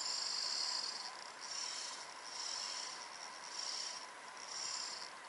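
Spinning reel's drag buzzing in surges as a freshly hooked ladyfish pulls out line, a high raspy sound that comes and goes about five times over a steady hiss.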